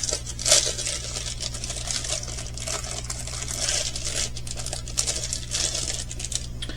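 Small plastic bag packed with pearl beads for diamond painting being handled: the beads click and rattle against each other amid plastic crinkling, in a run of quick, irregular clicks and rustles.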